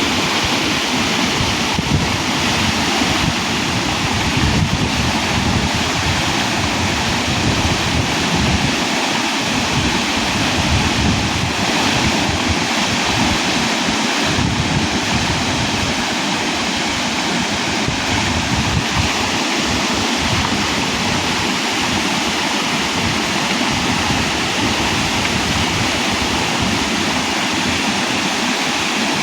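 Waterfall rushing loud and steady, with gusts of wind buffeting the microphone at times.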